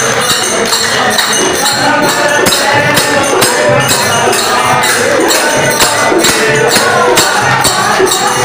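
Loud music: singing over a steady beat of jingling hand percussion.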